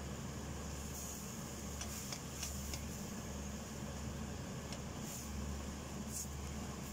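Silicone spatula stirring rice, chicken and vegetables in a stainless steel pot, giving a few faint scrapes and clicks over a steady low hum.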